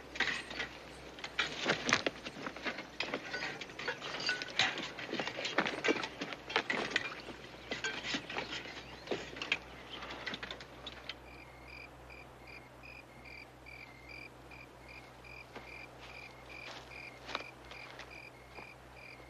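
Tin plates, cups and spoons clinking and scraping as stew is ladled out and eaten. About eleven seconds in the clatter stops and crickets chirp steadily, in evenly repeated pulses.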